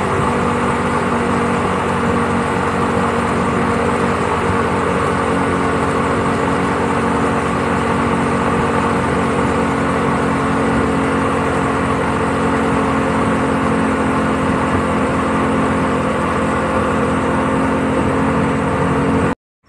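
Motorboat engine running steadily at speed over the rush of its churning wake; it cuts off abruptly near the end.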